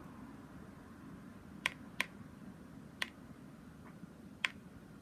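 Drops of watercolour paint landing on watercolour paper as it is dripped on: five short sharp ticks spread over about three seconds, starting nearly two seconds in, one of them fainter, over a low room hiss.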